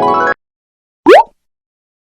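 Two comedy sound effects. A rising keyboard-synth run cuts off abruptly near the start. Then, about a second in, comes one quick, loud upward pitch sweep, a short cartoon-style effect.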